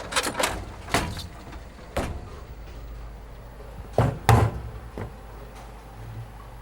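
A series of sharp knocks over a low steady hum, the loudest two close together about four seconds in.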